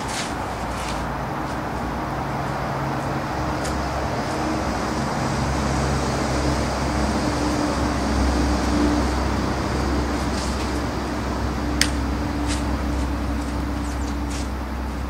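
Steady road-traffic noise with the low hum of a motor vehicle engine running, swelling a little in the middle. A single sharp click comes a few seconds before the end.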